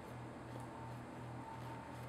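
Spatula scraping red velvet cake batter down the sides of a glass stand-mixer bowl: faint, soft scrapes over a low steady hum.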